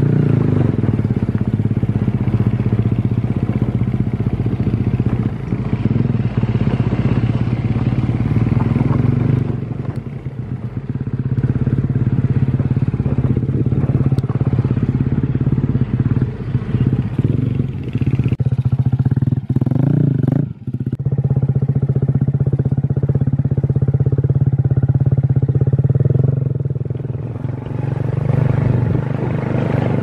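Motorcycle engine running steadily while riding along a rough forest track, heard from on the bike. The engine note drops briefly about twenty seconds in, then picks up again.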